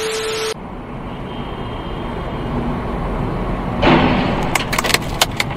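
A half-second burst of TV-static hiss with a steady beep tone, then road rumble inside a moving car. About four seconds in comes a loud crash as a truck's tall load strikes a highway overpass, followed by a quick run of sharp cracks.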